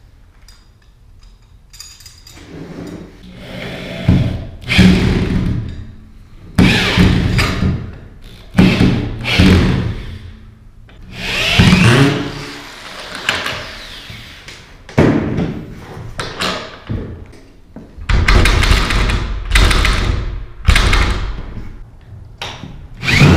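Hand-held power drill running in repeated short runs of one to three seconds, speeding up and slowing down, as bolt locks are fixed to the truck's door frame.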